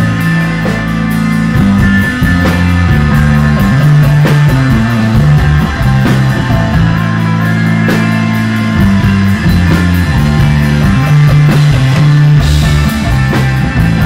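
Live instrumental desert rock from a band: bass guitar holding long low notes that change every second or two under electric guitar, with a drum kit keeping time on cymbals and drums.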